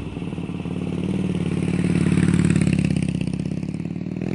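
Motorcycle engine running with a fast, pulsing beat, its revs swelling about two seconds in and then easing off.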